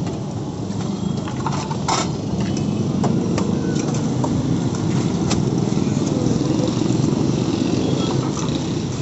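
Steady low rumble of street traffic, with a few sharp metallic clinks, one about two seconds in and another past halfway.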